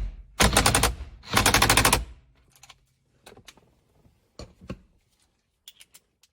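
Cordless impact wrench hammering the steering wheel's retaining nut onto the steering shaft in two short bursts of rapid rattling, about two seconds in all. A few faint clicks and taps follow.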